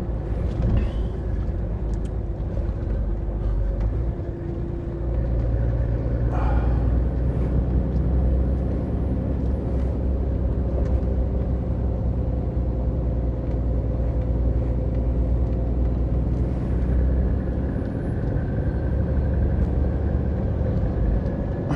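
Scania lorry's diesel engine running on the road, heard from inside the cab as a steady low drone. Its note shifts about four to five seconds in, and there is a brief hiss a second or two later.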